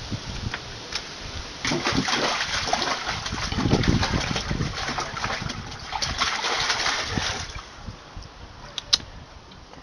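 A German Shepherd puppy splashing and pawing at water in a plastic tub, loudest from about two seconds in until near seven, then dying down. A single sharp click near the end.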